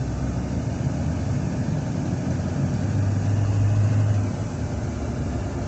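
Inside the cab of a Duramax 6.6 L V8 turbo-diesel pickup driving slowly: a steady engine and road drone, with a stronger low hum for about a second past the middle.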